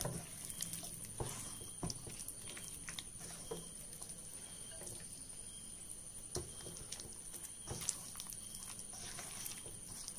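Hands kneading raw chicken pieces in a thick egg-and-onion batter in a stainless steel bowl, working the marinade into the meat: faint, irregular wet squelching with scattered small clicks.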